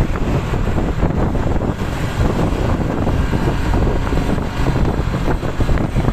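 Low rumble of a road vehicle, heavily buffeted by wind noise on the microphone.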